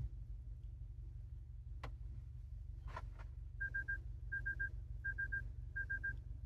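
Toyota Tacoma's in-cabin alert chime beeping in four quick sets of three, starting about three and a half seconds in, with the truck in reverse. Before it, two faint clicks over a low steady cabin hum.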